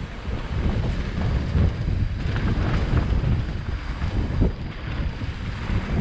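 Wind buffeting a helmet or action camera's microphone during a fast mountain-bike descent, an uneven low rumble mixed with noise from the bike rolling over rough trail.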